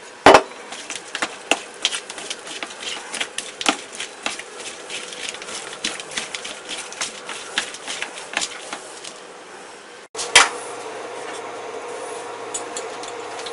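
Gloved hands tossing soy-marinated chicken wing pieces in a metal bowl: irregular wet slaps and knocks of meat against the bowl, the loudest right at the start. After about ten seconds this gives way to a steady low hum with a single clack.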